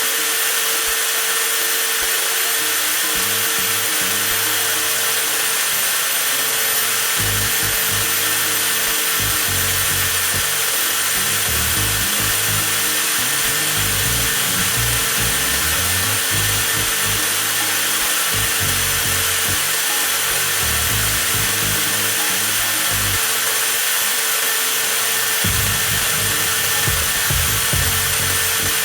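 TOTAL 20V cordless angle grinder running steadily at full speed with no load, a constant high motor whine, while its battery is run down in a runtime test.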